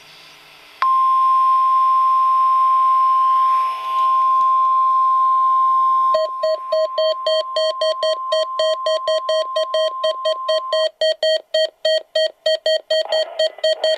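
NOAA Weather Radio 1050 Hz warning alarm tone, a steady high tone that starts about a second in and stops about three seconds before the end. From about six seconds in, a weather radio receiver's alert sounds rapid electronic beeps, about four to five a second, and they go on after the tone stops.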